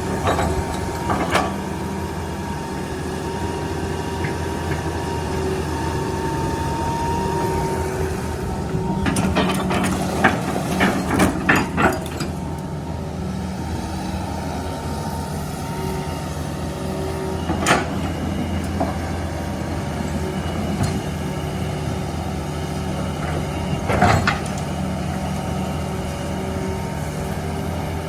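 Backhoe loader engine running steadily at work, with a thin whine over it for the first several seconds. A rapid cluster of clanks and knocks comes around a third of the way in, and single sharp knocks come later.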